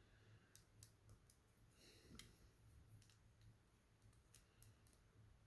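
Near silence: faint room tone with a few scattered, faint clicks of plastic LEGO pieces being handled.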